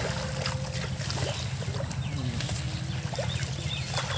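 Pond water splashing and sloshing as hands work through the water and floating water hyacinth, in short irregular splashes over a steady low rumble.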